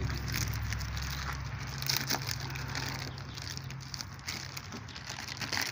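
Plastic wrapping crinkling and rustling in irregular crackles as a packaged part is unwrapped by hand.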